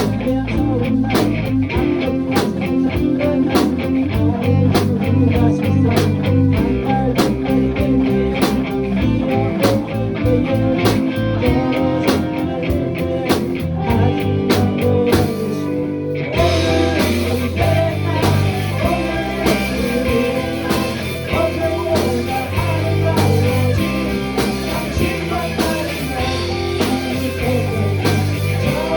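A live rock band playing a blues-rock song: electric guitar, bass and drum kit keeping a steady beat. About 16 seconds in the drums open up onto the cymbals and the band sounds fuller.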